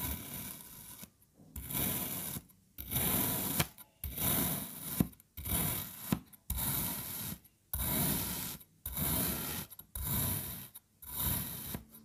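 A thin flat blade slicing down through moulded kinetic sand, about ten cutting strokes in a row, each a short gritty scrape with a brief pause between.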